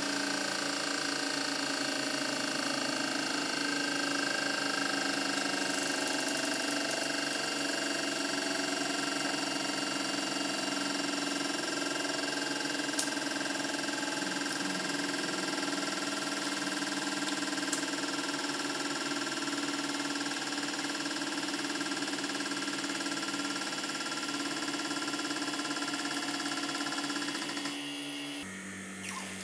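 Hydraulic press's pump motor running steadily while the ram crushes a motorcycle helmet under rising load. A sharp crack sounds about halfway through and a fainter one a few seconds later. Near the end the machine sound drops and changes tone.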